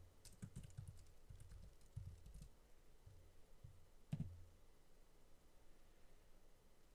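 Faint computer keyboard typing: a quick run of keystrokes over about two seconds, then a single louder click just after four seconds in.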